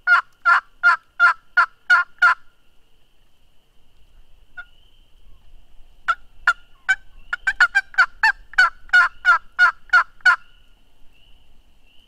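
Turkey yelps, sharp and evenly spaced at about three a second. A run of about seven is followed by a pause of several seconds, then a longer run of about fifteen that speeds up briefly partway through. A faint, steady high-pitched tone runs underneath.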